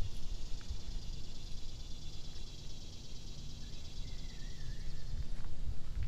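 A steady, high insect chorus from the trees, with a short wavering bird call about four seconds in, over a low rumble on the microphone.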